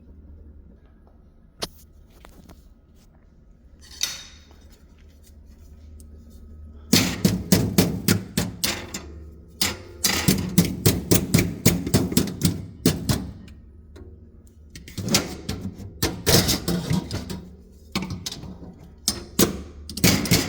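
A low steady hum, then from about seven seconds in a rapid, irregular clatter of knocks and rattles, several a second, coming in runs with short pauses.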